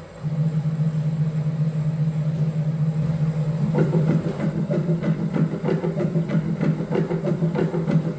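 Closed-loop stepper motors of a direct-drive delta robot humming steadily as the arms move. From about three and a half seconds in, rapid irregular clicking and clatter join the hum as the arms move quickly.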